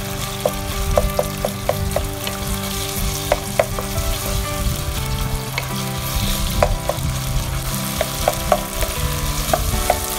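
Marinated boneless chicken frying in oil in a pan, sizzling steadily as it is stirred, with repeated irregular clicks of the utensil against the pan.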